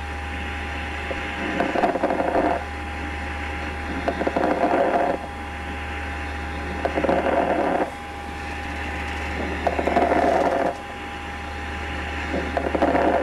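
Lung sounds recorded through a stethoscope: crackles, as heard at the base of the lungs, typical of pneumonia. Five breaths come about every three seconds, each carrying about a second of crackling, over a steady low hum.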